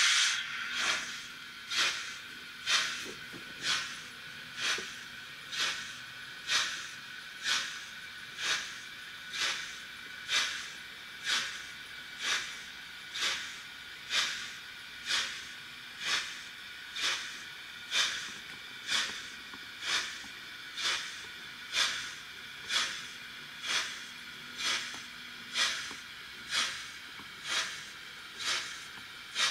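Sound decoder of a Märklin/Trix BR 96 Mallet model steam locomotive playing steam exhaust chuffs through its small speaker: an even, hissing chuff about once a second, like a steam engine working slowly.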